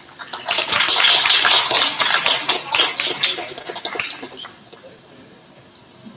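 Applause from a small crowd of guests, a dense patter of hand claps that dies away about four and a half seconds in.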